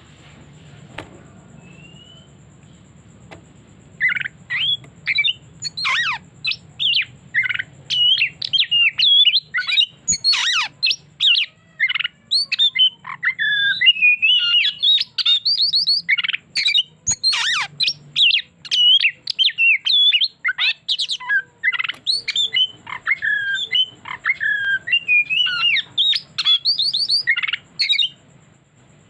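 Oriental magpie-robin singing a long, rapid, varied song of whistles, trills and chattering phrases that starts about four seconds in and stops shortly before the end, over a faint low hum.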